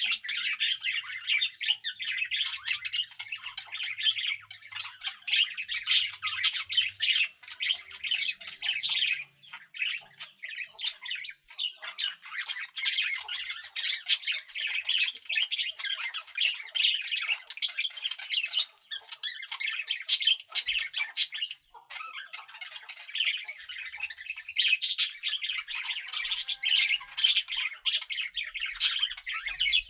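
Several pet budgerigars chattering and chirping together in a continuous warble of quick, rapid notes.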